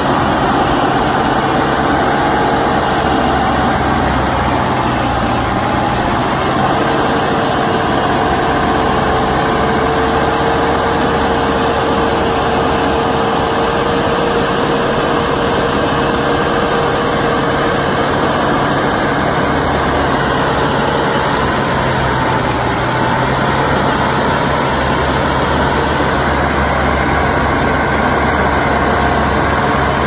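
Tractor diesel engine running steadily while driving a forestry mulcher, with a steady whine above the engine note that shifts slightly in pitch a couple of times.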